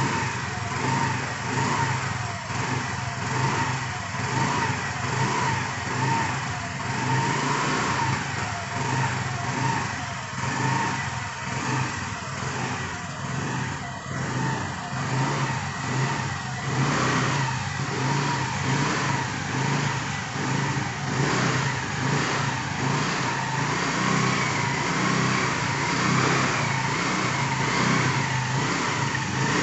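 Honda Activa scooter's single-cylinder four-stroke engine running and being revved on the twist-grip throttle: repeated short rises in revs about a second apart, then longer, higher revs in the last third.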